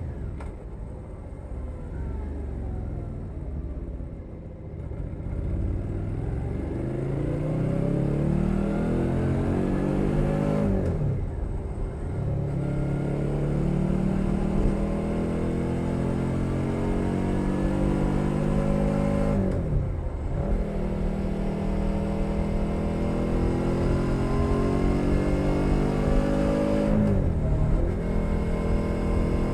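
2021 Suzuki SV 650's V-twin engine through a Leo Vince Nero exhaust, heard close from under the seat. The engine note falls at first as the bike slows. It then accelerates through the gears, the pitch climbing and dropping sharply at three upshifts about eight seconds apart.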